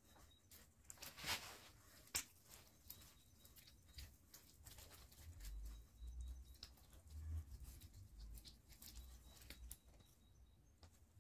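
Faint scattered clicks and rustles of hands wiring a lemon bonsai, bending wire and brushing leaves and branches, with two sharper clicks in the first few seconds and soft low bumps in the middle.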